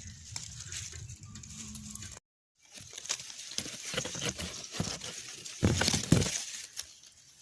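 Rustling and crackling of leafy plants handled close to the microphone, as spinach leaves are picked, with many small snaps and a few louder thumps near the end. The sound breaks off into silence for a moment about two seconds in.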